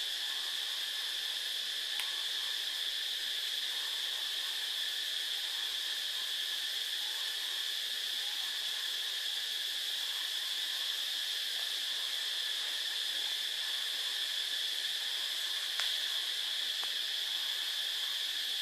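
Steady insect chorus, a constant high-pitched buzz that does not change, with a few faint clicks.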